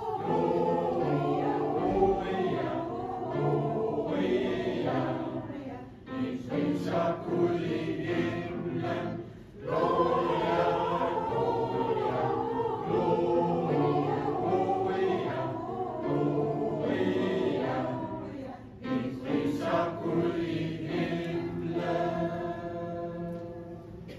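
Mixed choir of men and women singing in harmony with upright piano accompaniment, with brief breaks between phrases.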